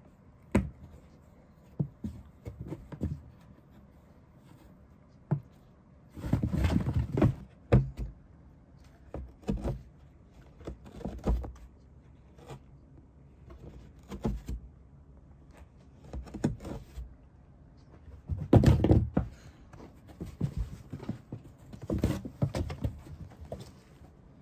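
Cats moving about and tussling inside a cardboard pet house: scattered bumps and knocks against the cardboard, with longer spells of scuffling about six seconds in and again about three-quarters of the way through.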